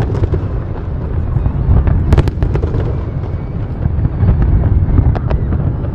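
Aerial fireworks display: a continuous deep rumble of shells bursting, with sharp cracks about two seconds in and again around five seconds.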